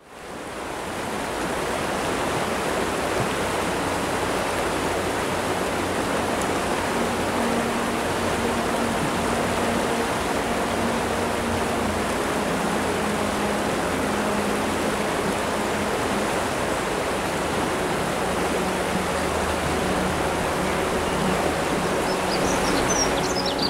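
River rapids: a steady rush of water over rocks, fading in over the first second or so. A few high chirps come in near the end.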